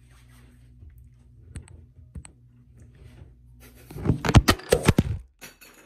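Phone handling noise: a faint low hum with a couple of light clicks, then about a second of loud knocks and rubbing as the recording phone is grabbed and moved against the microphone.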